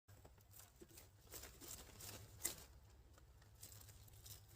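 Near silence with faint scattered clicks and rustles, one slightly sharper tick about two and a half seconds in.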